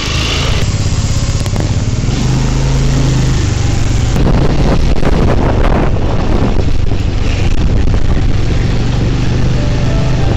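Motor scooter engine running steadily while the scooter is ridden, with rushing air noise over it.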